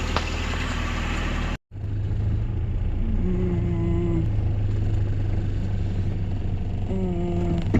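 Vehicle engine running steadily while driving, a low rumble that cuts out for an instant about a second and a half in and then resumes. A short steady hum-like tone sounds twice over it, near the middle and near the end.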